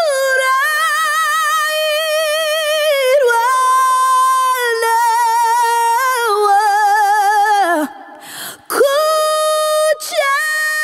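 A woman singing unaccompanied, recorded through a Warm Audio WA-44 ribbon microphone with a Warm Lifter inline preamp. She holds long notes with a wide vibrato that step down in pitch, breaks off for a breath about eight seconds in, then takes up another long held note.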